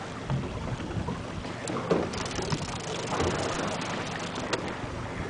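Steady wind noise on the microphone over the low hum of the boat's engine, with a few light clicks and knocks.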